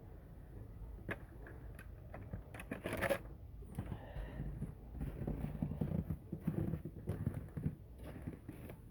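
Footsteps and rustling handling noise from someone walking while holding a phone camera: irregular soft knocks and scuffs over a low rumble, with a brief louder scrape about three seconds in.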